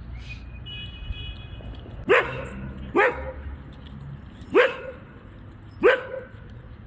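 A dog barking four times, single sharp barks spaced about a second or more apart.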